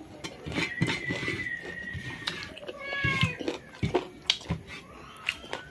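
Two high, wavering animal-like cries, a drawn-out one about a second in and a shorter falling one about three seconds in, with a faint third near the end. Under them are scattered clicks and smacks of eating by hand from a steel plate.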